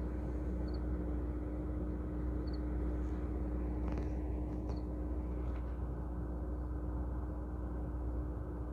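Steady low outdoor hum with a constant droning tone, the kind of background rumble of a city at night, with a few faint high chirps.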